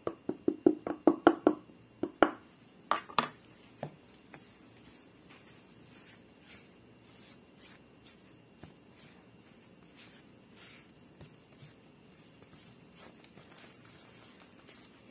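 A plastic container and spatula knock against a plastic mixing bowl as the last flour is tapped and scraped out: a quick run of about a dozen sharp taps over the first four seconds. Then there is only faint scraping as the flour is stirred into the liquid in the bowl.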